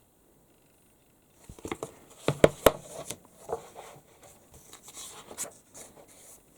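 Magazine pages being handled and turned: paper rustling that starts about a second and a half in, with a few sharp paper snaps about two and a half seconds in, then softer rustling.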